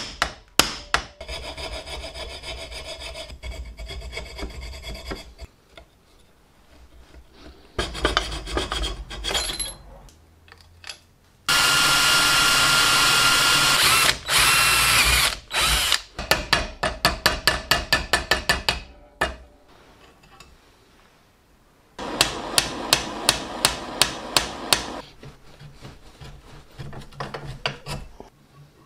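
Hammer taps on the rivets of a rusty cast-iron charcoal iron, and bouts of steady electric drilling as the rivets are drilled out. Between the drilling come runs of quick hammer strikes, about four a second.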